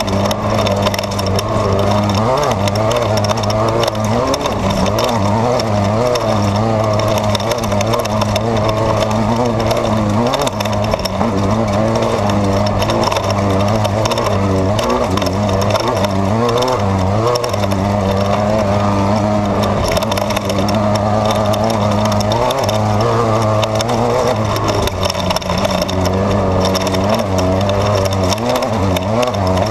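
Off-road race car's engine running at speed, heard from inside the car, its pitch wavering up and down with the throttle over a steady noise of the ride.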